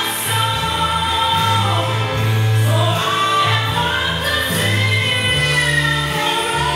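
Music with a sung melody over held bass notes that change every second or so.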